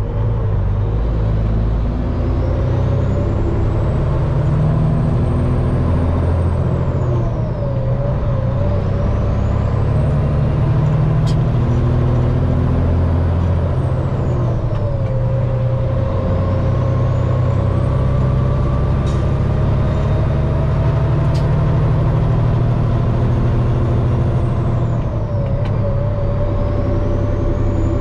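Peterbilt semi truck's diesel engine pulling hard up through the gears of its manual transmission. A high whistle climbs and holds as the revs build in each gear, then drops away at each shift, three times. A few sharp clicks are heard along the way.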